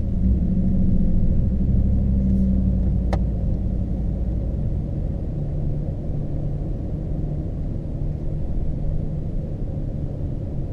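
Ford F-150's 5.0 V8 exhaust, through a single Flowmaster 50 Series HD Delta Flow muffler with dual outlets and the factory resonator still fitted, heard from inside the cab while driving: a deep rumble, louder and a little higher for the first three seconds, then settling lower and steady. One sharp click about three seconds in.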